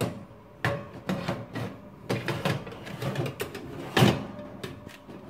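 Metal baking tray loaded with chestnuts being slid into an oven along its rack, a run of clicks and scrapes with a louder knock about four seconds in.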